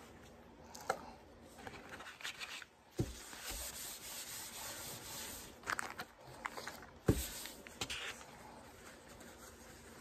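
Paper towel rubbing and rustling as a syringe and a foil drink pouch are wiped down, with two thumps about three and seven seconds in.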